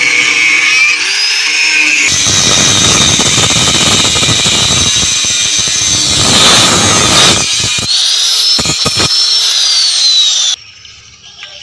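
Electric angle grinder with a cutting disc cutting through the sheet-metal body panel of a combine harvester. A high motor whine turns into a harsh cutting screech about two seconds in, as the disc bites, with the pitch sagging under load. About seven and a half seconds in the disc lifts off, and the whine winds down and stops near the end.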